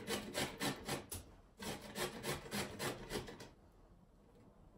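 A carrot being grated on a metal box grater: rasping strokes about four a second, with a short pause just over a second in. The strokes stop about three and a half seconds in.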